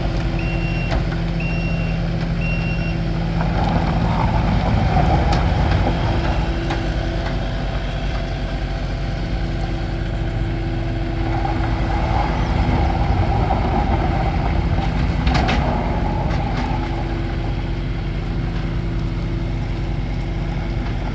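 Kubota SSV75 skid steer's four-cylinder diesel engine running, its backup alarm beeping about once a second for the first three seconds. The engine note swells and grows louder twice, about four seconds in and again from about twelve to sixteen seconds.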